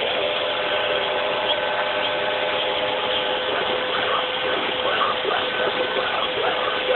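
RobotX R800 robot vacuum cleaner running on a wooden floor: a steady motor and brush hum with a constant tone through it.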